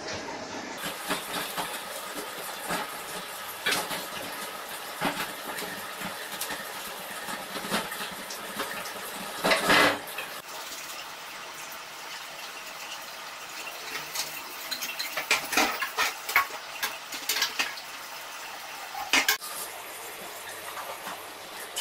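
Plastic-wrapped paper flag bunting being handled and unpacked: a steady crinkling rustle broken by many small clicks and knocks. There are louder bursts of rustling about ten seconds in, a cluster of them a little later, and one more near the end.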